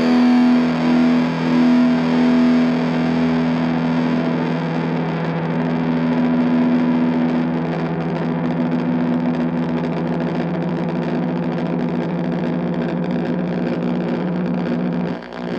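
Distorted electric guitar: a Fender Jazzmaster with Stonewall Fat Jazzmaster pickups played through a prototype ESI Transponder effects pedal into an Orange Micro Dark amp with the gain at 7 and a 1x8 cab. Long notes are held and sustained for many seconds, with a brief drop in level just before the end.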